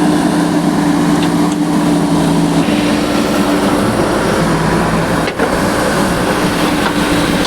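Engine of heavy road-construction machinery running steadily, a constant engine drone with a held hum.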